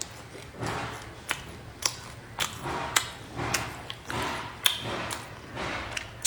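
A person eating close to the microphone: chewing and crunching in short bursts, broken by sharp clicks about once a second.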